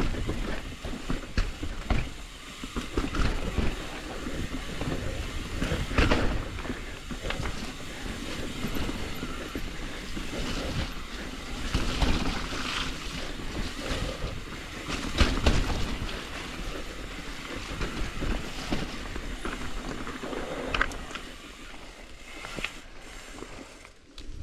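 Transition TransAM hardtail mountain bike descending a rough dirt trail: tyres rolling over dirt and rocks, with the bike rattling and sharp knocks from hits on the ground. It quietens near the end.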